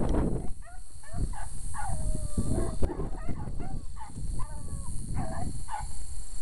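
Beagle baying on a rabbit's trail: about a dozen short yelps and drawn-out bawls, with one long falling bawl about two seconds in.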